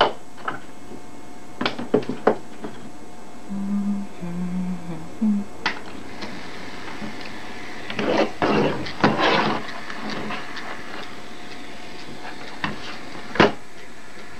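Scattered clicks and knocks of handling around a 1961 Webcor Microcorder's metal battery box as it is loaded with batteries, with a cluster of rattling knocks about eight to nine seconds in and one sharp knock near the end. A brief low hum comes and goes around four seconds in.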